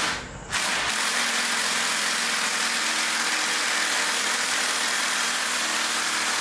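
Power drill with a titanium bit running steadily under load, grinding into a stuck bolt at the bike's crank. It starts about half a second in.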